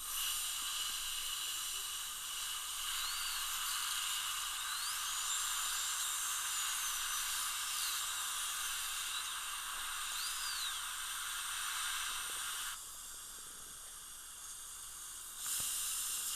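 High-speed dental drill running with a steady hiss, its high whine rising and falling as the bur cuts. It stops about thirteen seconds in and starts again near the end.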